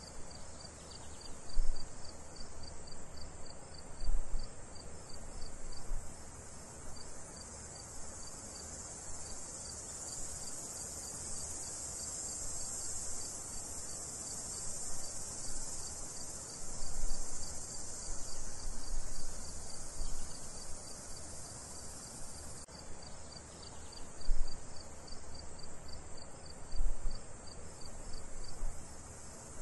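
Crickets chirping in a rapid, even pulse over a steady high insect hiss, with a few short, dull low thumps now and then.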